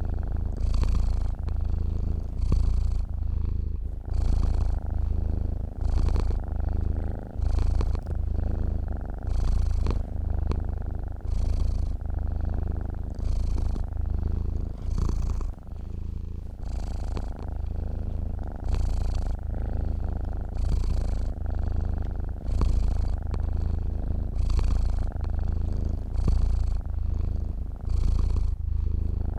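A sleeping domestic cat purring close to the microphone, the purr swelling and easing in an even rhythm about once every two seconds.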